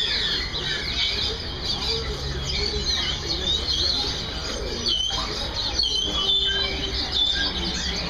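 Many caged songbirds chirping and trilling at once in a dense, continuous chorus of short, high calls.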